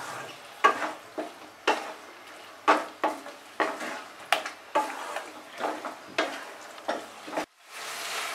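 Spatula scraping and stirring ridge gourd pieces in poppy-seed paste in a non-stick kadai, about one stroke a second, over a low sizzle of frying on high flame. The sound drops out briefly near the end, then the sizzle resumes.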